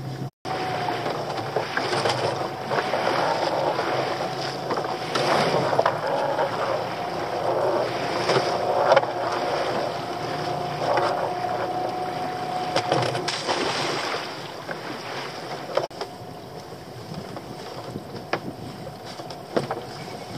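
Small open boat under way on its outboard motor at low speed, a steady hum over water noise, with splashing swells about every second and a half and wind on the microphone. It gets quieter after about fourteen seconds.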